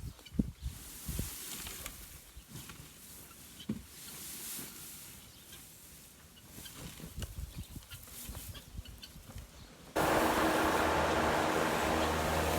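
Scattered soft low thumps, then about ten seconds in a loud, steady rushing noise with a low mechanical hum starts suddenly.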